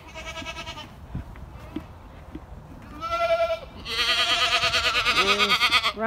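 Boer goats bleating for their feed: one call trails off in the first second, a short bleat comes about three seconds in, then a long, loud, quavering bleat lasts about two seconds near the end. It is the complaining and hollering of hungry goats at feeding time.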